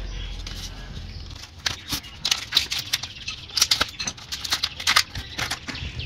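Irregular run of sharp clicks and crackles from hands working around the washing machine gearbox seal, likely as silicone sealant is applied. The clicks start about a second and a half in and thin out near the end.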